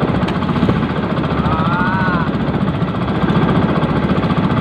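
Small outrigger fishing boat's engine running steadily under way, a loud, rapid, even chugging. A brief vocal sound about two seconds in.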